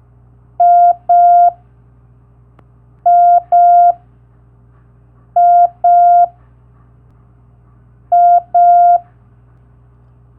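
Morse code letter M (dah-dah) played as a steady beep tone: a pair of long beeps, repeated four times about every two and a half seconds, over a faint low hum.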